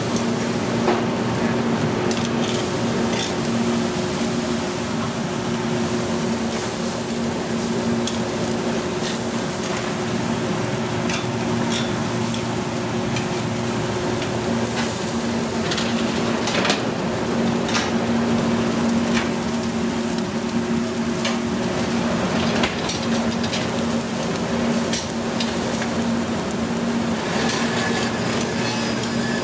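Dry-aged porterhouse steaks sizzling on a steakhouse broiler grill, with scattered clicks of metal tongs against the grate as the steaks are moved and turned, over a steady low hum.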